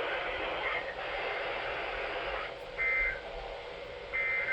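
Weather radio receiver hissing with static, then two short bursts of the EAS SAME digital code, a buzzy two-tone data warble. The bursts start about three seconds in and again about a second later; they are the coded data bursts that open or close an alert message.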